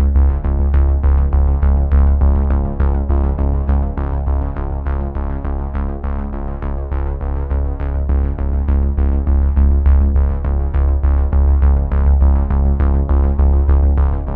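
Background music: an electronic synthesizer track with a strong bass line and a steady beat.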